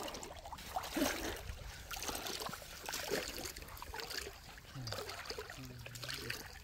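Shallow seawater sloshing and trickling around the legs as someone wades slowly through a draining tidal flat, in small irregular splashes.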